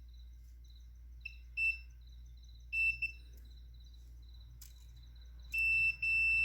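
Digital multimeter on its continuity (beep) setting: a few short beeps as the probes touch the rewound submersible motor's winding leads, then a steady unbroken beep near the end when the probes hold contact. The meter is testing for a short between the starting and running windings.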